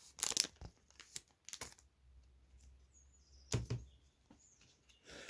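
Pokémon trading cards and their paper wrapping being handled: short crinkling rustles and card clicks, with a double knock about three and a half seconds in.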